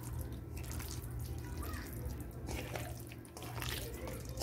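A hand squelching and scraping through wet marinated raw chicken in a steel bowl, in irregular wet squishes, over a steady low hum.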